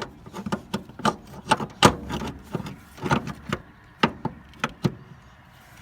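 Irregular sharp knocks and clanks of hand tools against metal, about fifteen in a few seconds, while a motor mount is worked loose.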